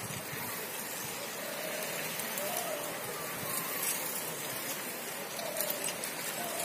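Steady outdoor roadside background hiss, with faint distant voices calling out now and then.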